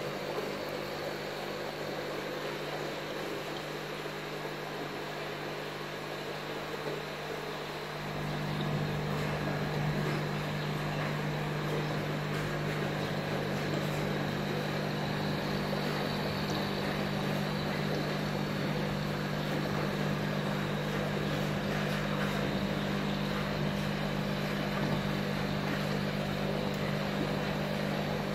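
Steady hum of aquarium equipment, an air pump and filter running, over the hiss of bubbling water. The hum grows a little louder and fuller about eight seconds in.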